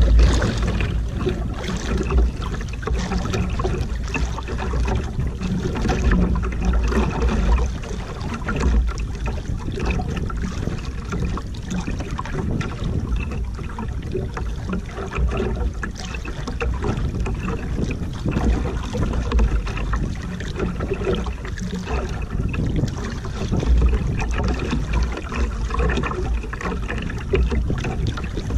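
Wind buffeting the microphone in uneven gusts, with waves slapping and splashing against the hull of a small outrigger canoe at sea.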